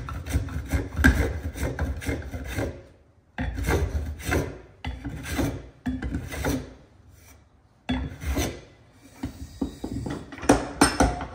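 Record 020C compass plane cutting along the curved edge of a wooden board in several runs of quick strokes. A few sharp knocks near the end, as the metal plane is handled on the bench.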